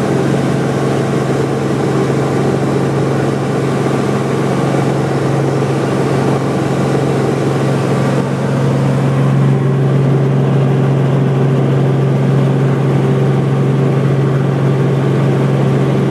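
Helicopter engine and rotor heard inside the cabin, a loud steady drone with a constant low tone, as the helicopter lifts off and climbs.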